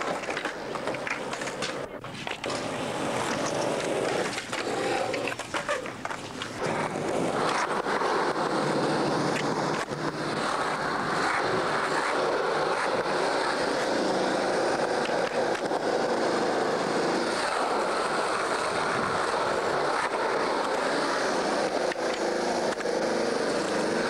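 Skateboard wheels rolling on concrete, a steady rolling noise, with a few clacks of the board in the first several seconds.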